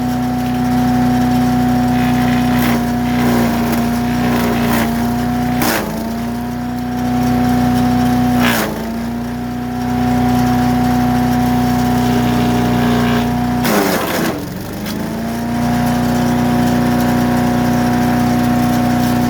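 Harbor Freight wood chipper's gas engine running at steady speed, bogging down briefly three times as wood goes into the chipper and recovering each time. Sharp cracks of wood being chipped come with each dip, about six seconds in, near eight and a half seconds and around fourteen seconds.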